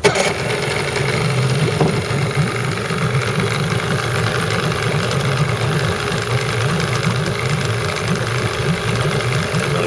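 Johnson 9.9 Sailmaster outboard motor firing up on its electric starter at the very start, then idling steadily.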